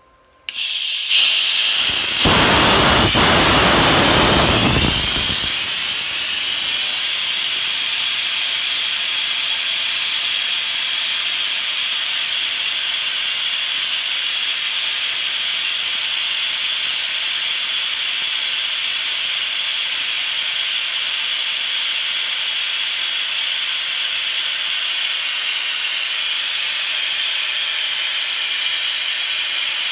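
Compressed Tri-Mix welding gas venting from an open cylinder valve: a steady high hiss that starts about a second in, with a louder, fuller rush for its first few seconds. The cylinder still holds plenty of pressure.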